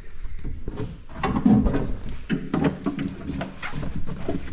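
A vinyl-topped, closed-cell foam floor mat being pressed and smoothed into a Hummer H1's floor pan by hand: repeated rubbing, scraping and tapping sounds with a heavier thump about a second and a half in. A low steady pitched sound runs through the second half.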